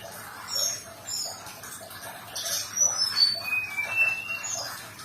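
Brown-chested jungle flycatcher singing: a series of short clear whistled notes and slurred chirps at changing pitches, one or two a second, over a steady rushing background hiss.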